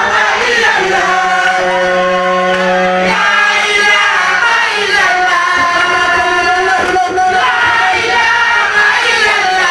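A group of men's voices singing a religious chant together into microphones, with long held notes.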